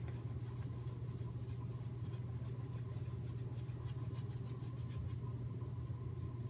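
Shaving brush working soap lather over a stubbled face, faint repeated scratchy strokes, over a steady low hum.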